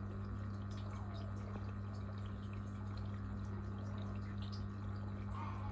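Aquarium filter or pump running with a steady low electric hum, over trickling, dripping water with scattered small drips and bubble ticks.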